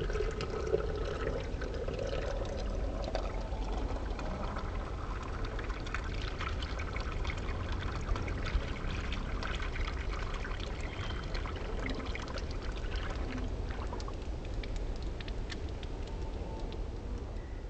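Sparkling drink poured into a champagne flute and fizzing: a steady hiss with many tiny pops.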